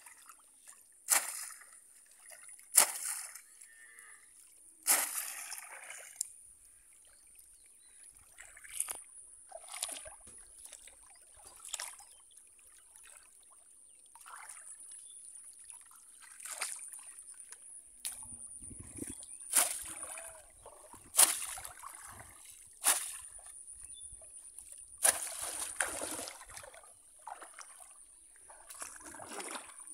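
Water splashing and sloshing as a bamboo polo fish trap is pushed down into shallow water and a hand gropes inside it. The splashes come at irregular intervals every one to three seconds over a faint steady high hiss.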